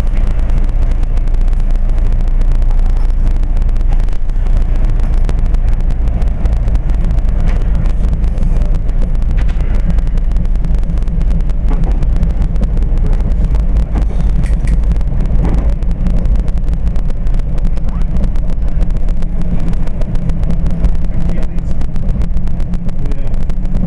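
SEPTA Regional Rail commuter train running along the track, heard from inside the passenger car: a loud, steady low rumble of wheels on rail and the train's running gear.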